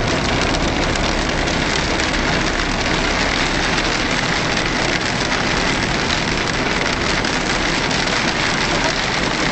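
Heavy rain drumming steadily on a 4x4's windscreen and roof, heard from inside the cabin, with the low running noise of the vehicle underneath.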